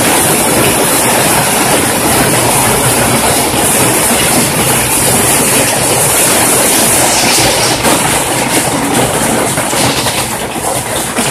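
Heavy hail falling: a loud, dense clatter of hailstones striking the pavement and roofing. About seven seconds in, the hits thin a little and come through as more separate taps.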